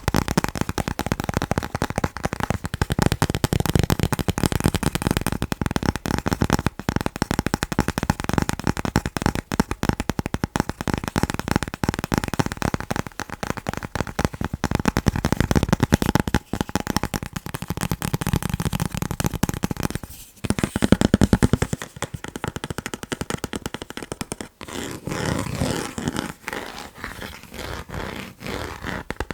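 Rapid, dense tapping on chocolate, many taps a second, with a couple of brief breaks about two-thirds through.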